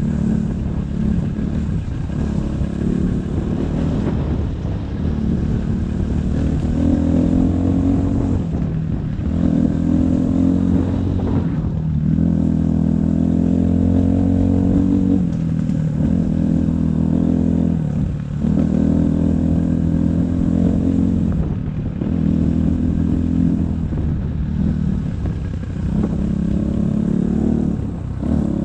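Templar 250 dirt bike engine running under the rider on a trail ride, its note rising and falling as the throttle is opened and eased, dropping off briefly several times.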